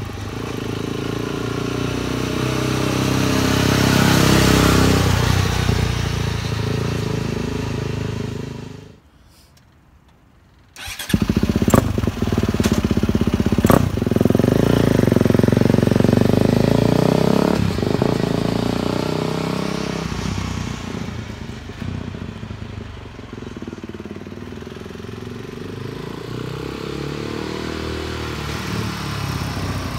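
KTM 450cc single-cylinder four-stroke dirt bike engine in a Porsche 911 Power Wheels kart, revving hard as the kart drives up and past. It drops out for about two seconds, then comes back loud with a couple of sharp cracks. It fades to a steadier, lower drone over the last ten seconds.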